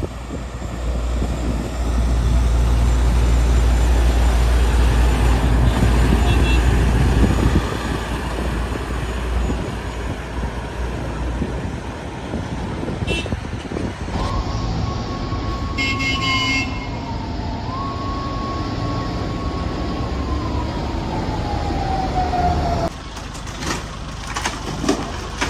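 Heavy truck engine and road noise, loud and low for the first several seconds. Over it comes a long siren-like tone that holds, dips briefly, holds again and then slides down in pitch before stopping near the end.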